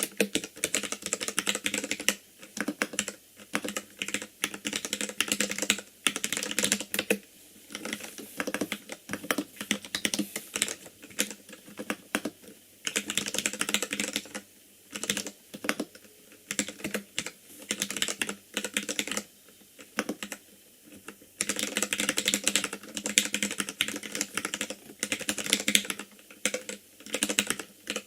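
Typing on an ikbc Poker II compact mechanical keyboard with Gateron Red linear switches: rapid key clacks in runs of a few seconds, separated by short pauses.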